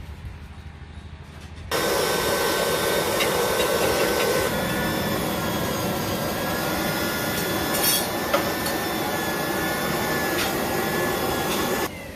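A power grinder grinding a steel knife blade: a continuous hissing grind with steady high whining tones. It starts abruptly about two seconds in and stops abruptly near the end. A quieter low motor hum is there before it.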